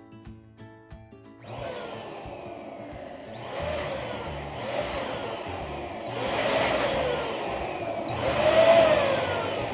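Electric balloon pump blowing air into a balloon, starting about a second and a half in as the music stops, and swelling louder in three surges, with short whistling tones that rise and fall.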